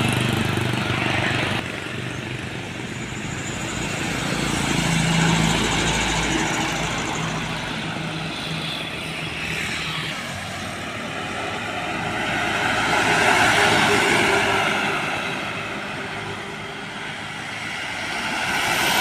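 Road vehicles passing one after another. Their engine and tyre noise swells and fades about three times, with a low, steady engine drone during the first pass.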